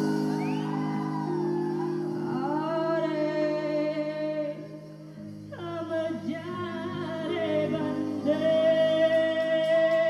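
Live folk-rock fusion band: a female singer holds long sung notes over electric bass and guitars, with a short lull between phrases about halfway through.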